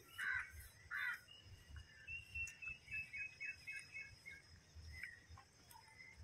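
A crow caws twice in the first second or so. Then a small bird gives a quick run of high chirps, about four a second, over the steady high hiss of insects.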